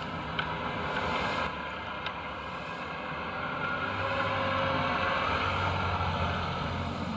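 A passing vehicle's engine and road noise, swelling a few seconds in, with a few light clicks near the start.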